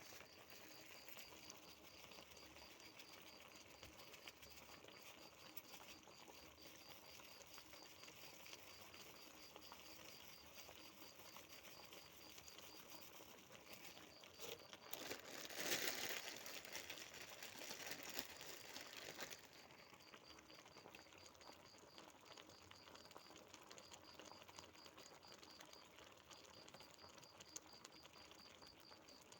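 Faint steady crackling of food cooking, louder for about five seconds around the middle, with a faint regular high tick about three times a second.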